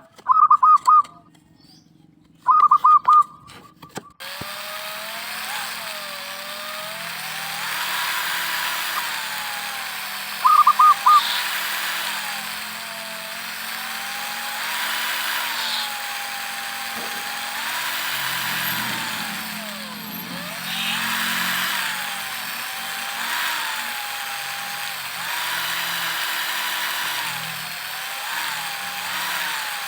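A small electric power tool, such as a drill, running continuously while working bamboo or wood. Its motor pitch sags and recovers again and again as it bites and eases off. Two short loud bursts come near the start, and another about ten seconds in.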